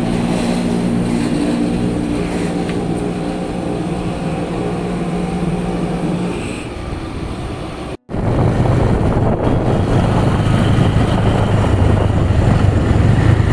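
A vehicle engine running steadily, then, after an abrupt cut about two-thirds of the way in, the vehicle driving along with a louder low engine hum mixed with road and wind noise.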